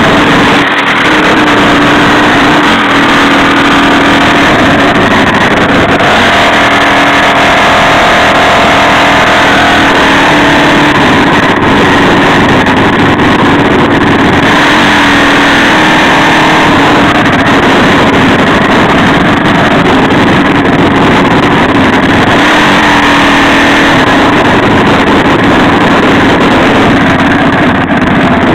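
Mini bike engines running loud and steady at riding speed, heard from on board.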